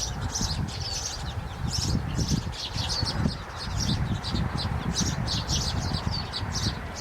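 Small birds chirping in quick, repeated high notes, over a steady low rumble.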